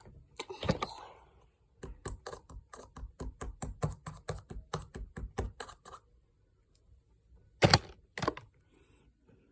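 Rapid clicking and tapping on a small plastic glitter container as it is worked at to get it open, about five clicks a second for a few seconds, then two louder knocks near the end.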